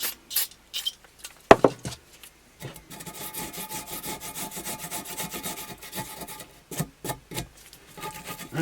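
Steel parts of a Vetterli rifle bolt scraping and clicking against each other as a stuck, gummed-up part is worked by hand. A sharp knock comes about one and a half seconds in, followed by a few seconds of quick, even rubbing strokes and a couple of clicks near the end.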